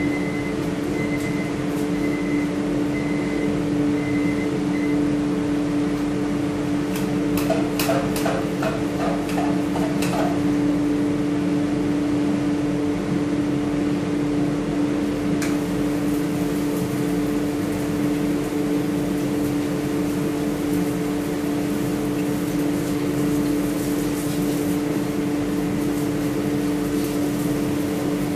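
Steady hum of a running fan motor, with a constant low tone. About a third of the way in comes a short run of quick clicks, and a faint hiss joins from about halfway.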